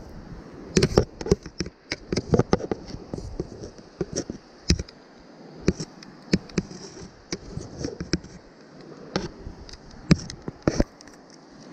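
Irregular sharp clicks and knocks of handling noise: a landing net's metal handle and a spinning rod and reel being moved about right at the microphone. A river's steady flow runs beneath.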